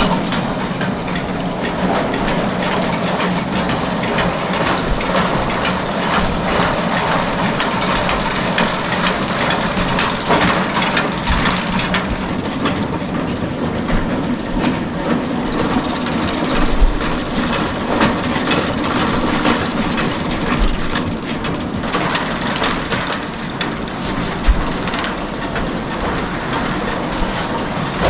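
Bale elevator running, its chain conveyor clattering steadily with a low hum as small square straw bales ride up it. A few louder knocks of bales stand out, one past the middle and one near the end.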